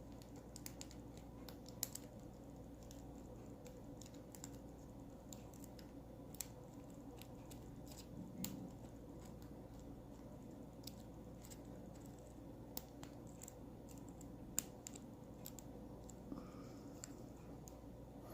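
Faint, irregular metallic clicks and scratches of a lock pick and tension bar working the pins inside a pin-tumbler lock's keyway.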